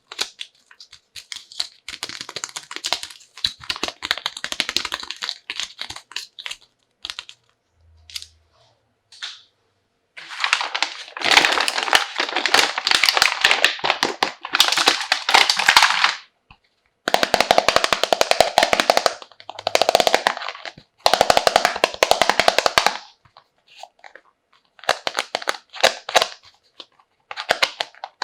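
Plastic toy packaging being handled during an unboxing, crinkling and rustling in several bursts of a few seconds each with short pauses between.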